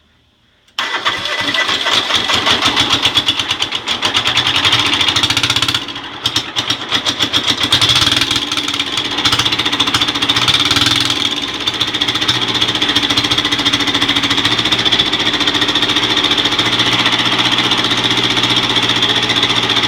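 Freshly rebuilt Kubota Z482 two-cylinder diesel starting for the first time. It is cranked and fires about a second in, runs with an uneven pulse for several seconds, then settles into a steady, even run.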